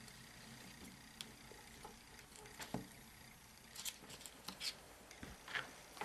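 Faint, scattered small clicks and rustles of hands working on thin wires and small tools.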